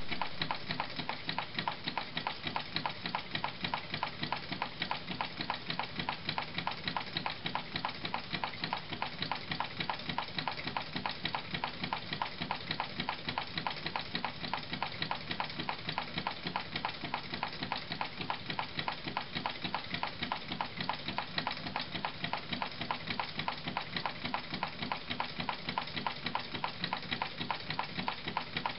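Small homemade drink-can Stirling engine running, its wire crankshaft and linkage making a fast, even ticking as it turns a fan.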